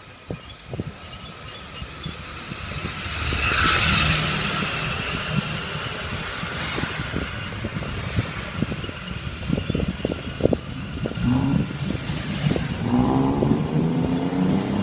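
Street traffic heard from a moving bicycle, with wind rumbling on the microphone. A motor vehicle passes about four seconds in, and a motor scooter's engine approaches near the end.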